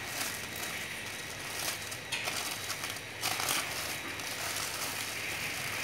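Clear plastic packaging bag crinkling and rustling under hands as a folded car sun shade is pressed into it, in uneven spells, loudest a little past three seconds in.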